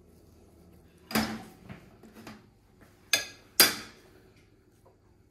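Kitchenware clattering as food is served: a metal serving spoon, a large pot and china plates knocking together, with one sharp knock about a second in, a couple of lighter ones, and two louder knocks a little after three seconds.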